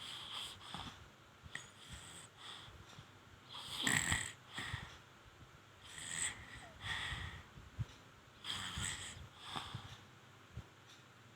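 A baby snoring: short, noisy breaths repeat every second or two, and the loudest comes about four seconds in.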